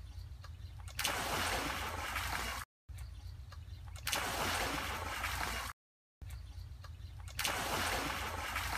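Water poured from a clay pot splashing into an earthen pit holding shallow muddy water. It comes as three separate pours, each starting abruptly, about 1, 4 and 7.5 seconds in, broken by short dead silences.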